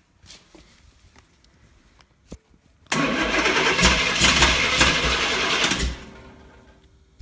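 1958 Chevrolet Apache pickup engine being cranked by the starter, which starts suddenly about three seconds in and runs for about three seconds without the engine firing, then winds down. It is a failed start attempt on a hard-starting engine.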